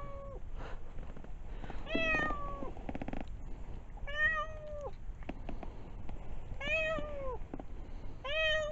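A stray cat meowing four times, about two seconds apart; each meow is drawn out and drops in pitch at the end. A brief rustle follows the first meow.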